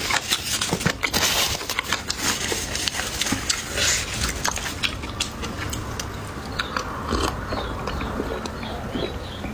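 Close-miked chewing and biting of food: a person eating, with many sharp clicks and wet mouth noises, busiest in the first half and softer towards the end.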